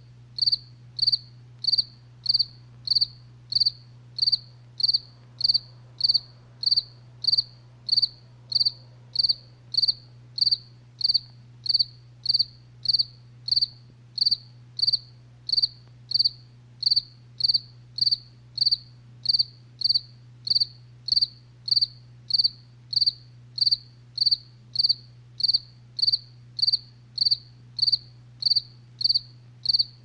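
A cricket chirping in a steady, even rhythm of about two high chirps a second, over a low steady hum.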